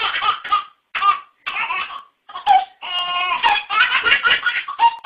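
A baby laughing in a string of short bursts with brief breaths between them.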